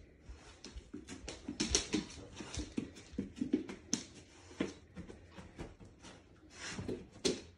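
A dog moving about and sniffing as she hunts for a hidden treat: irregular quiet clicks and shuffles of her paws on a hardwood floor and on soft dog beds.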